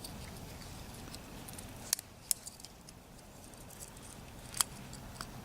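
A few sharp little metallic clicks and lighter ticks, four of them loud, from the Leatherman Squirt PS4 keychain multitool being handled.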